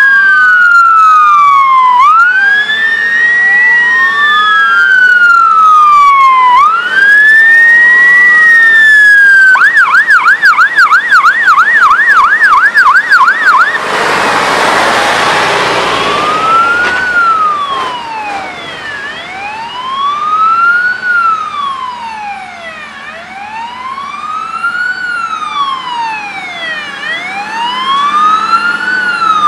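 Sirens of Tatra 148 fire engines wailing in slow rising-and-falling sweeps, switching to a fast yelp about ten seconds in. A loud rush of noise follows as a truck passes close, then slow wailing again from the following engine, with two sirens overlapping.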